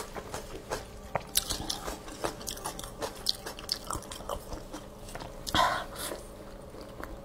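Close-miked chewing and mouth smacks on glazed braised pork, mixed with sticky crackles of gloved fingers pulling the meat apart. There is one louder bite about five and a half seconds in.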